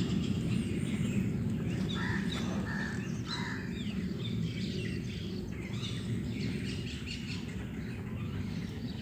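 Small birds chirping and trilling in short scattered calls, most of them in the first half, over a steady low rumble.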